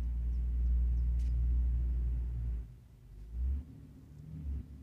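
Low rumble that swells at the start and drops away about halfway through, with a shorter swell a second later.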